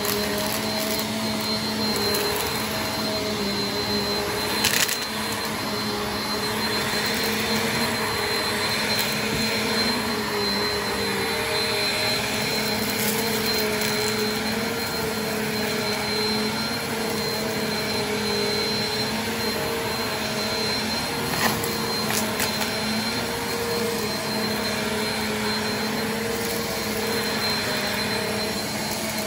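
Bagless upright vacuum cleaner running steadily over a carpet rug, sucking up confetti and sequins. Two sharp clacks stand out, one about five seconds in and another about sixteen seconds later.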